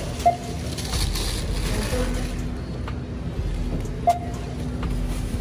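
Supermarket checkout barcode scanner beeping twice, about four seconds apart, as items are scanned. Under it run a steady store hum and the rustle of paper grocery bags being packed.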